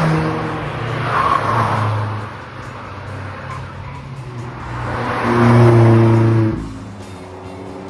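Cars passing by one after another, engine note swelling as each goes past. The loudest is a Mazda MX-5 Miata passing close about five to six seconds in, its engine sound cutting off abruptly just after.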